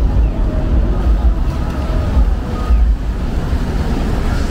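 Wind buffeting the microphone as a loud, gusty low rumble, over the general noise of a city street with traffic.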